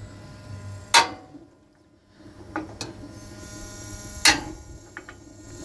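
Burner controls on a Blackstone propane griddle being worked to light the burners: two loud, sharp igniter clicks about three seconds apart, with a few fainter clicks between and after.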